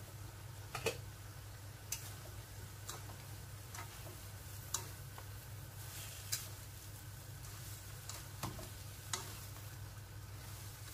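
A spatula stirring vegetables in a metal pot, knocking against the pot in scattered sharp clicks about once a second, over a faint sizzle of the cooking vegetables and a steady low hum.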